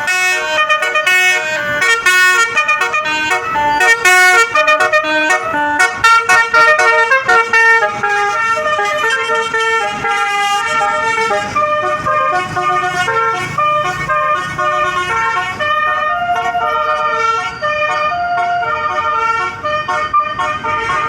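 Bus's basuri telolet horn, a set of electric multi-tone horns, playing a melody: a quick run of changing notes over the first several seconds, then longer held notes.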